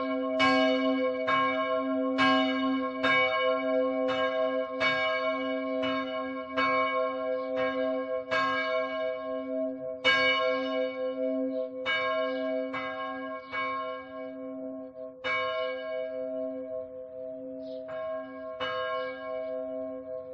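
A church bell tolling, struck about once a second with a couple of longer pauses, each stroke ringing out over a steady hum that carries on between strokes. The strokes grow fainter near the end.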